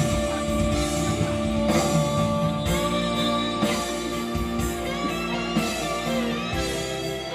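Instrumental band music led by guitar, with no singing.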